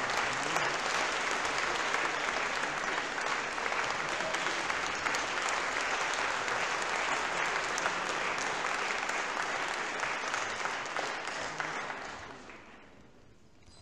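Audience applauding steadily, dying away about a second before the end.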